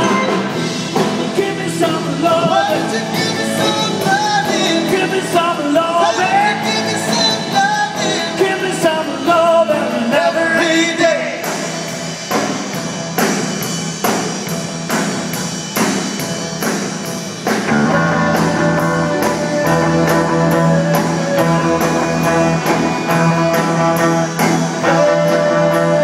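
Live rock band playing: a singer over guitars and a drum kit. About eleven seconds in the singing drops out and hard, regular drum hits lead, then the full band comes back in about eighteen seconds in.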